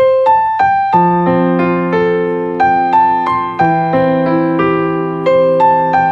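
Background music: a gentle electric piano melody of single struck notes over sustained low notes.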